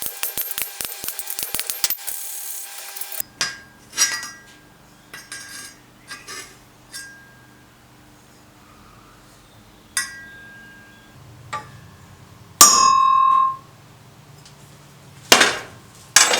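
Steel tools and workpieces clinking and tapping, each strike ringing briefly. A fast run of rattling clicks comes first, and near the end there is one loud ring lasting about a second.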